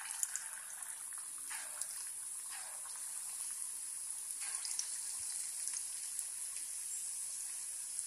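Hot oil sizzling steadily in a deep pan as lumps of moong dal bonda batter are dropped in by hand and deep-fry, with a few brief splashy sounds as batter goes in during the first half.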